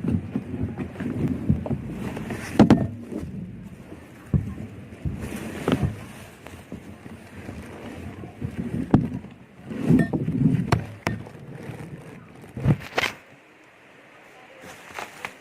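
Irregular knocks, clicks and rumbling handling noise, several sharp knocks standing out, dying down to a faint hiss about thirteen seconds in.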